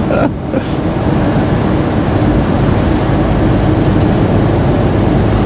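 Steady cab noise of a Fiat Ducato-based motorhome cruising at motorway speed: tyre roar, engine drone and wind, with the air conditioning running.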